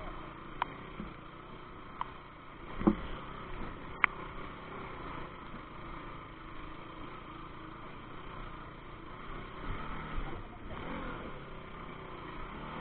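Motorcycle running over rough ground, with scattered sharp knocks and a louder thump about three seconds in.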